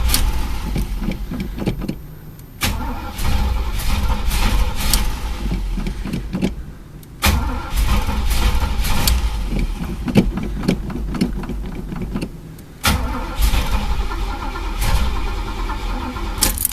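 Chevy El Camino engine being cranked by its starter in several long attempts, broken by short pauses, turning over without catching. The tank is out of gas, though the gauge showed full.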